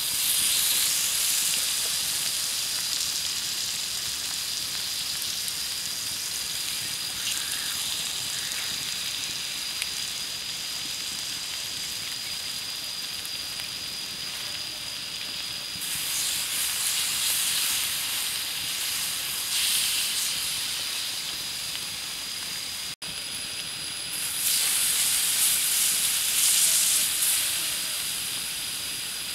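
Squid sizzling and hissing on a hot flat stone over a wood fire, swelling louder in stretches as the pieces are turned with a stick.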